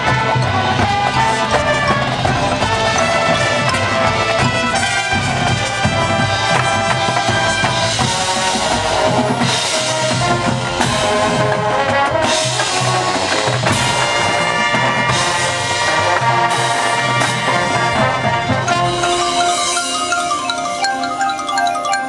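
High school marching band playing its field show: brass with drums and a front ensemble of marimbas and xylophones. A string of sharp accents comes between about 8 and 18 seconds in, and the mallet keyboards are heard more clearly toward the end.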